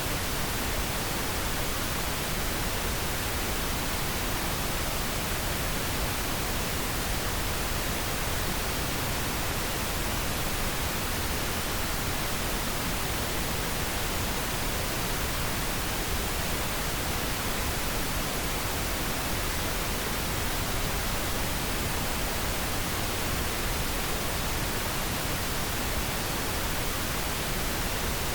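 Steady pink noise: an even, unchanging hiss across all pitches.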